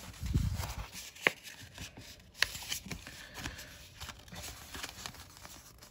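Paper scratch-off lottery ticket being handled and shifted in the hands: faint rustling of the card with a few sharp light ticks, the sharpest about a second in and again a second later.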